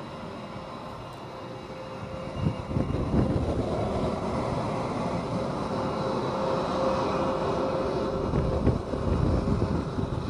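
F-22 Raptor's twin Pratt & Whitney F119 turbofans running at taxi power with a steady whine; about two and a half seconds in the sound grows louder, with a low, gusty rumble as a jet taxis past.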